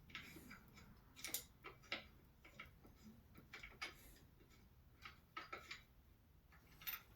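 Faint, irregular clicks and taps of telescope parts being handled as a piece is screwed onto the mount.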